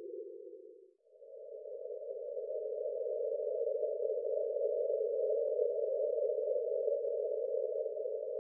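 Synthetic breath-pacing sound for a slow rhythmic breathing exercise: a soft, narrow, hum-like whoosh. A lower-pitched phase fades out about a second in, then a slightly higher-pitched phase swells up slowly, holds and begins to fade near the end, cueing the next phase of the breath.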